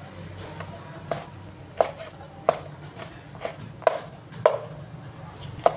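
Cleaver chopping raw pork shoulder on a wooden cutting board: about seven sharp chops, unevenly spaced, starting about a second in.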